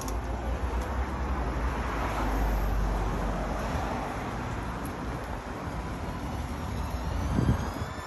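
Street traffic noise: a vehicle passing, swelling to a low rumble and fading away, with a short thump near the end.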